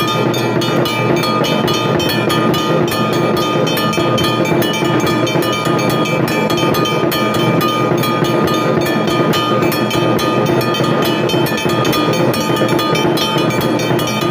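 Hindu temple aarti bells rung rapidly and without pause, a dense run of metallic strikes several times a second over steady ringing tones.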